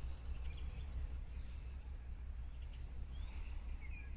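Faint bird chirps over a steady low outdoor rumble.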